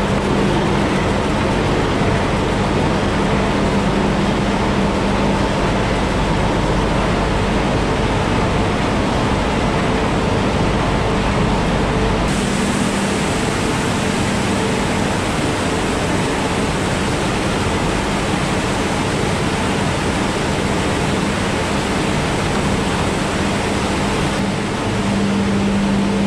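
Loud, steady din of cherry-processing machinery and conveyors, with a constant low hum. The noise shifts abruptly about halfway through and again near the end.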